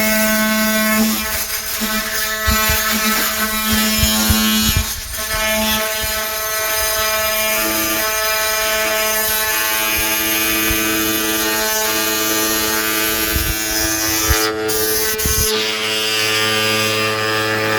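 Oscillating multi-tool running and cutting, a steady buzz whose pitch shifts as the load changes, with scattered knocks.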